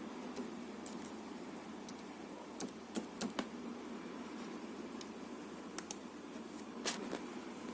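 Scattered clicks of a computer keyboard and mouse, some in quick clusters of two or three, over a steady background hum.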